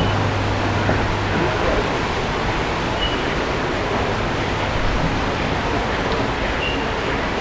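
Steady rushing of water, as from a waterfall or water flow in an aquarium exhibit, with three brief faint high peeps.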